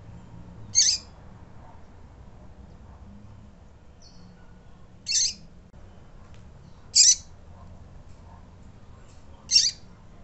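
Female double-collared seedeater (coleiro) calling: four short, high-pitched calls a few seconds apart, over a faint low hum.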